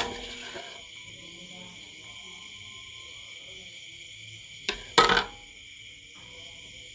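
A steady high-pitched chorus of insects, with a sharp knock at the start and a pair of sharp knocks close together about five seconds in.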